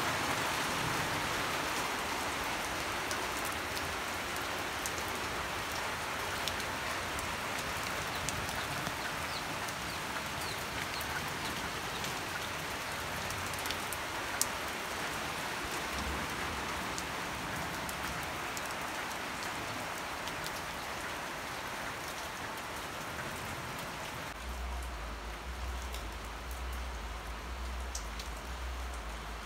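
Steady rain falling on leaves and puddled gravel ground, with scattered drips; a low rumble comes in near the end.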